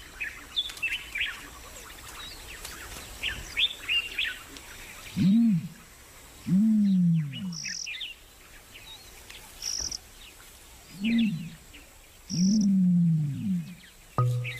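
Birds calling: many short, high chirps, with four low calls that each fall in pitch, in two pairs about six seconds apart, each pair a short call followed by a longer one.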